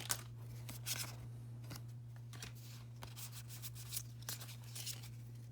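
Faint rustling and soft taps of Pokémon trading cards being handled and shuffled through the hands, a few brief handling sounds scattered through, over a steady low hum.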